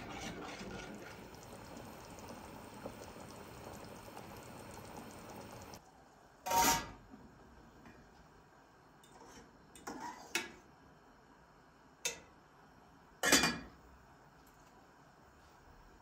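A metal ladle stirring and scraping through thick stew in a copper pot, which stops abruptly about six seconds in. Then come a few sharp clanks of pot lids and pots on the stove, the loudest two about halfway through and near the end.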